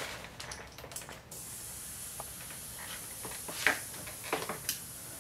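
Pressurised gasoline vapor hissing out of a hand-held torch nozzle. The hiss starts suddenly about a second in, as the gas supply is turned back on, and then holds steady. A few sharp clicks sound over it.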